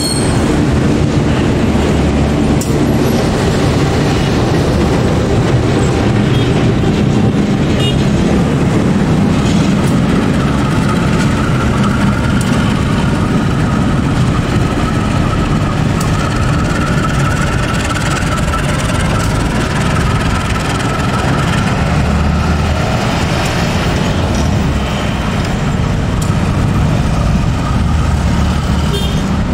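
Diesel-electric locomotive running as it hauls container flatcars at shunting speed: a steady low engine rumble, with a faint higher whine around the middle.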